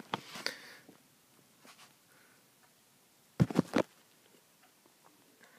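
Handling knocks and clicks: a few light ones at the start, then a quick cluster of about four sharp knocks near the middle.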